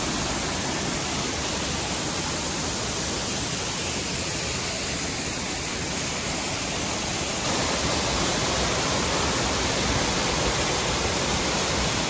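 Girlevik Waterfall's water falling, a steady rush of water that grows a little louder about seven and a half seconds in.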